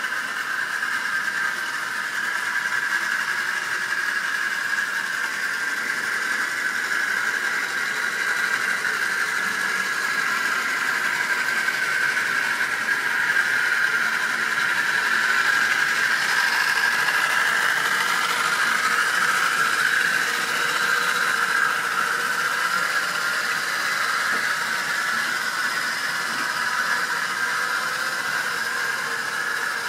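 Model railway train running round the track, with a steady high whine from the locomotive's electric motor and wheels that swells a little in the middle.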